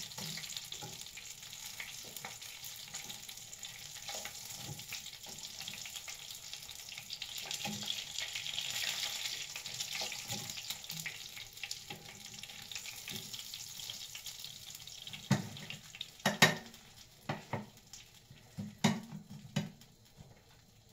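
Oil sizzling steadily in a frying pan as fried chicken pieces are turned and lifted out with metal tongs. The sizzle dies down about three quarters of the way through, and a few sharp clacks follow as the tongs hit the pan and plate.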